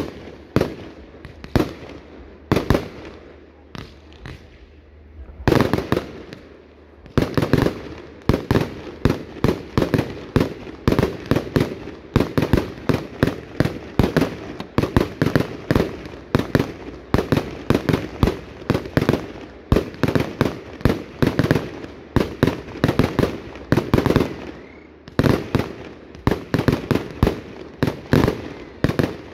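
Fireworks going off in a rapid barrage of sharp bangs, several a second, with a brief lull about four seconds in.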